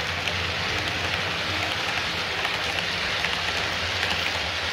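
00 scale model trains running past close by: a steady, crackly rattle of small metal wheels on the track, peppered with faint clicks, over a low steady hum.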